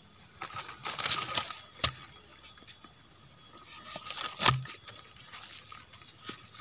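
Rustling and crackling of dry leaf litter and soil from hand and phone handling at a burrow, in two short spells. Each spell ends in a sharp click, the loudest sounds, about two seconds and four and a half seconds in.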